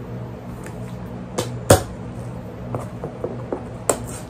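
Sharp knocks and taps, several in a row at uneven intervals, from a cardboard box being opened and its contents handled, over a steady low hum.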